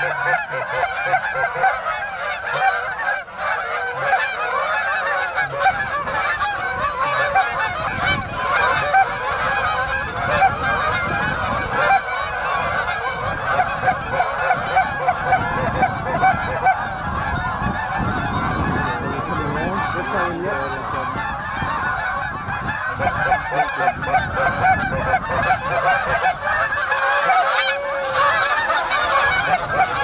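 A large flock of geese honking, a continuous din of many overlapping calls with no break.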